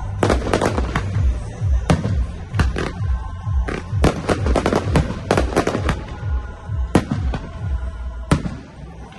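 Aerial firework shells bursting in a rapid series of sharp bangs, some in tight clusters and others spaced a second or so apart.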